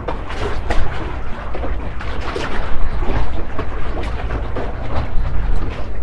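Strong wind buffeting the microphone: a loud, uneven low rumble with gusty noise above it.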